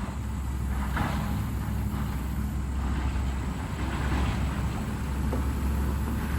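A vehicle driving: steady engine hum and road noise, growing a little louder in the first second.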